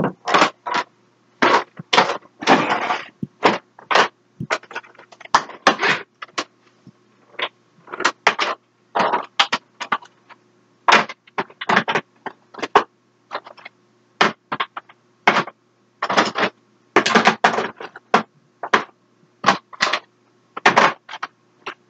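Plastic lipstick tubes and other makeup containers clacking and knocking together as they are handled and set down in quick succession. The clicks and clacks are irregular, one to three a second, with a few longer rattling scrapes.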